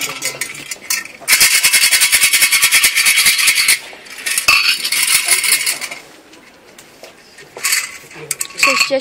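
Omikuji fortune canister holding numbered wooden sticks, shaken hard so the sticks rattle quickly inside, for about two and a half seconds starting about a second in. A shorter second round of shaking follows, which works one numbered stick out through the hole.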